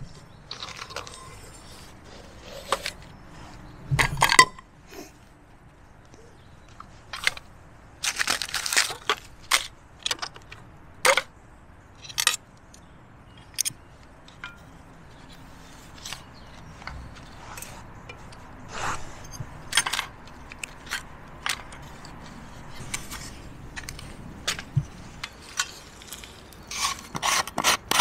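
Metal clinks, knocks and scrapes of a camping cook set (small pot, stove stand and brass spirit burner) being taken out of a cloth stuff sack and set out on the ground. The knocks come one after another in irregular bursts, the loudest about four seconds in and a quick cluster around eight to nine seconds in.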